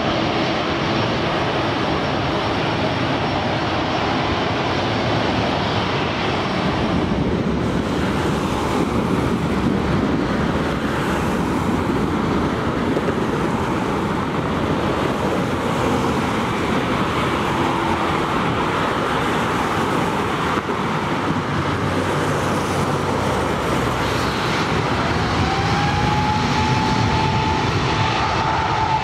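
Continuous jet airliner engine noise. A twin-engine widebody's landing roar changes about seven seconds in to the duller rumble of an Airbus A350 on the runway. Near the end its Rolls-Royce Trent XWB engines set up a single rising whine that levels off as they spool up.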